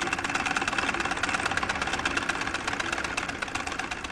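Treadle sewing machine running fast, its needle and shuttle mechanism making a rapid, steady clatter.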